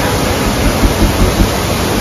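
Inglis Falls waterfall roaring: a heavy flow of water crashing over a ledge onto boulders, a loud, steady rush with a low rumble underneath.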